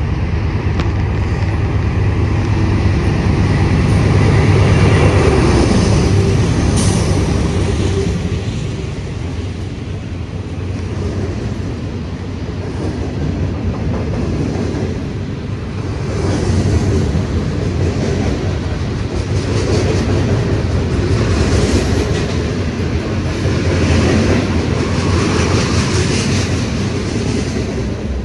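Freight train passing close by. The diesel locomotives go by with a heavy rumble, loudest about five seconds in, then the freight cars roll past with a clickety-clack of wheels over the rail joints, swelling and fading as each set of wheels goes by.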